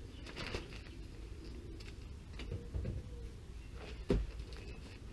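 Plastic building membrane being handled and pressed against a timber stud frame: rustling with a few sharp knocks, the loudest about four seconds in.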